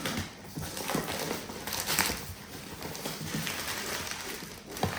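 Packaging being handled as a parcel is opened: irregular rustling and crinkling with small scrapes and knocks.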